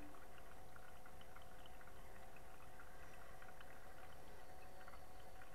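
Water bubbling and trickling in a small aquarium, with many small irregular pops over a steady hum.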